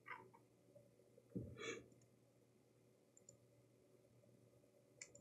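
Near silence with a few faint computer mouse clicks, and a brief soft sound about one and a half seconds in.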